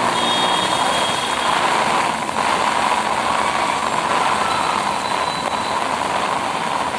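Steady noise of road traffic on a rain-soaked street, vehicles running through water on the road, with a held horn-like tone in the first second and a half.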